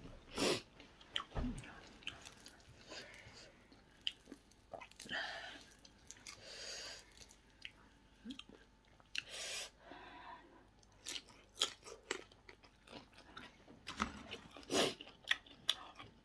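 A person chewing a peeled grilled prawn and other seafood, with wet lip smacks and sharp mouth clicks scattered irregularly throughout.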